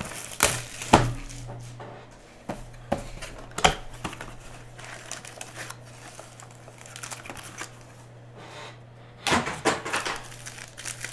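Foil wrappers of Panini Elite Extra Edition trading-card packs crinkling and crackling as hands handle them, in irregular short bursts, loudest about a second in, near four seconds, and again near the end.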